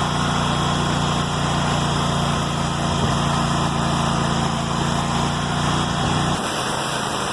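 Engine-driven pressure washer running at a set throttle, its engine hum under the steady hiss of high-pressure water spraying through a worn 40-degree nozzle. About six seconds in the low engine hum drops away while the spray hiss continues. The owner judges the nozzle definitely worn by the lower gauge pressure.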